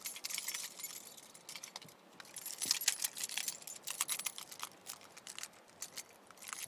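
Small hard objects jingling and clicking in irregular bursts, high-pitched and uneven in loudness.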